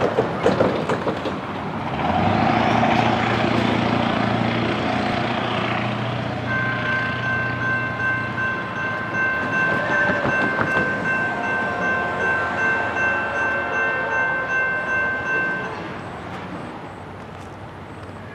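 A Nathan P3 three-chime air horn on a Norfolk Southern GE D9-40CW locomotive sounds one long, steady blast, starting about six seconds in and lasting around nine seconds. Before the horn, an engine rumbles with a low hum.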